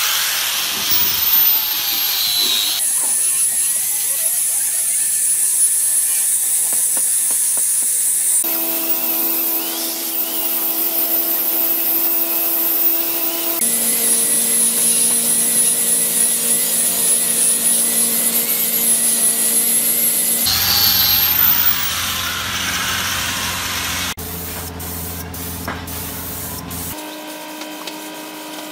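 A small power tool running steadily in several short clips joined by hard cuts, each with its own steady whine and hiss.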